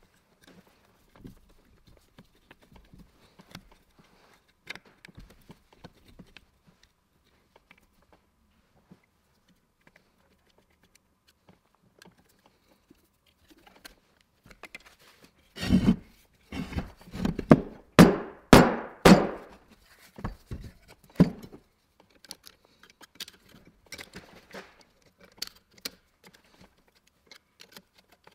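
Scattered faint clicks of parts being handled, then about halfway through a run of about ten heavy knocks and clunks over some six seconds, as parts of the old electric motor are handled and set down on a metal workbench.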